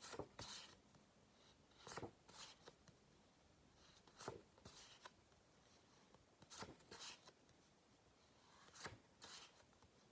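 Faint brushing swishes of cardboard flashcards being flipped over by hand, a quick pair of rubs about every two seconds in otherwise near silence.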